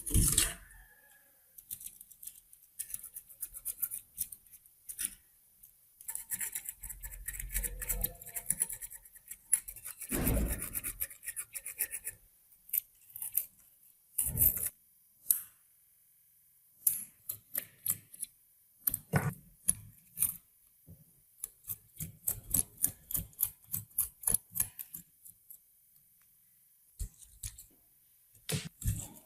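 Short, irregular scraping and brushing strokes on the rusty metal of a manual meat grinder, with a few knocks of metal parts in between.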